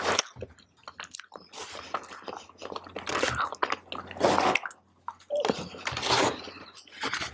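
Close-miked person chewing a mouthful of fried rice: wet mouth smacks and soft crunches in uneven clusters about a second apart.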